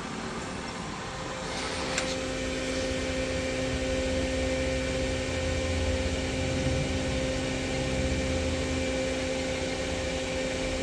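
PolyGim Diamond 42CSL Swiss-type CNC lathe running: a steady machine hum with a few constant tones. After a click about two seconds in it grows louder and fuller as the main spindle starts turning at low speed.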